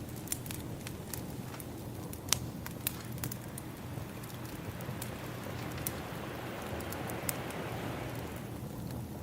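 Wood fire crackling with frequent sharp pops, over a steady wash of ocean waves; a wave swells about halfway through and recedes near the end.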